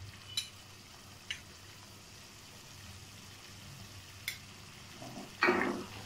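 Sugar syrup boiling in a steel pot, a faint steady bubbling hiss, stirred with a wooden spoon, with three light clicks of the spoon against the pot. A brief louder noise comes near the end.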